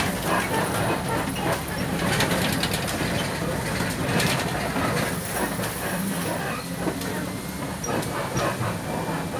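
Safari ride truck running along a rough track, its engine droning and its body rattling and knocking over the bumps. A faint high whine comes in about halfway through.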